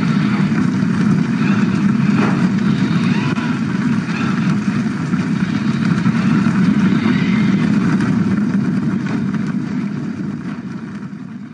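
Film or TV clip soundtrack: a loud, dense, low rumble of action sound effects, fading out over the last two seconds.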